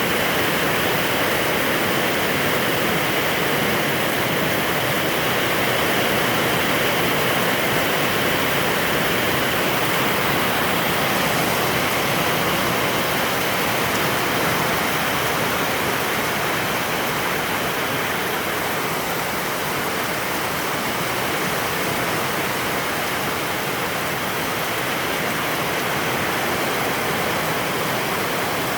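Rain falling steadily, a dense even hiss without a break.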